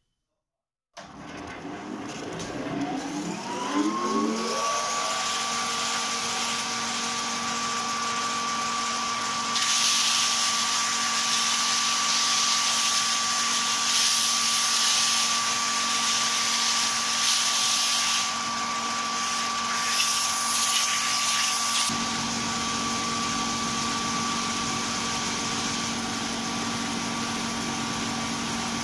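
A large electric woodworking machine starts up: its motor winds up to speed over about three seconds and settles into a steady hum with a high whine. From about ten seconds in, a wooden part is pressed against the running machine, adding a loud, uneven hiss for about twelve seconds before it eases off.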